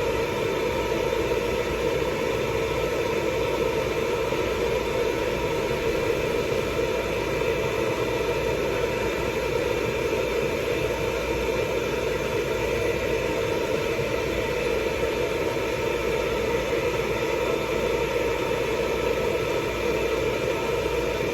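Hair dryer running steadily while drying a cat's fur: a continuous blowing noise with a steady motor hum.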